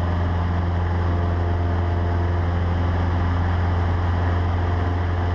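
Cessna 150's four-cylinder Continental O-200 engine and propeller running steadily in flight, a constant low drone heard inside the small cabin.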